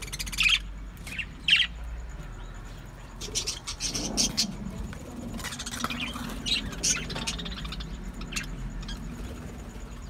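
Budgerigars chirping: short, sharp, high chirps, loudest in the first two seconds, then quicker flurries in the middle, over a low steady hum.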